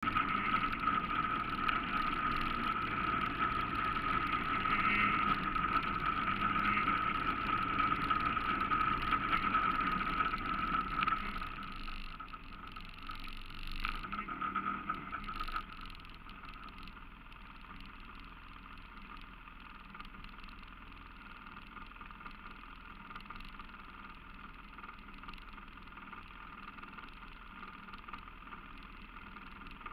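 ATV engine running while riding along a rough trail, with a steady whine in the first half; it eases off and drops to a quieter idle from about halfway through.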